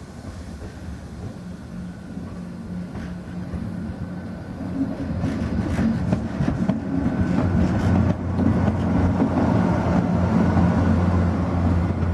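SNCF BB 26000-class electric locomotive (BB 26037) running light, approaching and passing close by: a steady electrical hum that grows louder from about four seconds in, over wheels rumbling on the rails with a few clicks.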